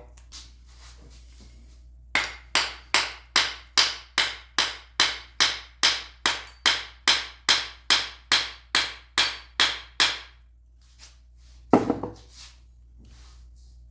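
Hammer tapping the butt of a screwdriver handle in a steady run of about twenty sharp knocks, roughly two and a half a second, working the handle further onto the shaft. One lower, louder knock comes near the end.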